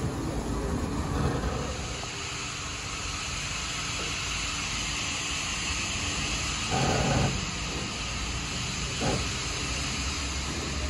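Steam-hauled train behind locomotives 3265 and 3526: a steady hiss with a low rumble, broken by a short louder sound about seven seconds in and a brief one about two seconds later.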